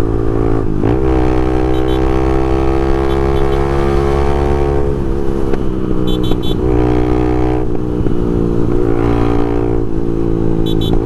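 Honda CBX 250 Twister's single-cylinder engine running hard through a noisy exhaust, with its intake hose removed. About a second in the revs dip, then the pitch climbs slowly as it accelerates; about five seconds in the revs drop and then rise and fall.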